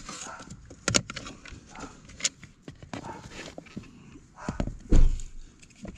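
Scattered clicks and knocks of the freed blower motor and plastic trim being handled under a car's dashboard, with a heavier low thump about five seconds in.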